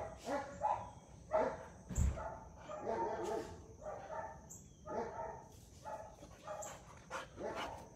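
Dog barking repeatedly in short, high, pitched calls, about one or two a second, with a dull thump about two seconds in.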